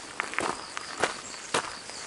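Footsteps walking at about two steps a second, over the steady rush of a mountain stream.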